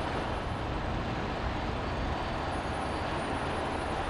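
Steady city traffic noise: an even wash of rumble and hiss with no distinct events.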